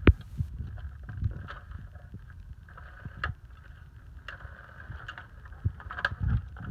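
Electronic spinning cat toy running with a steady whir under its plastic dome, with irregular knocks and taps from kittens' paws batting at its plastic shell; a sharp knock right at the start is the loudest.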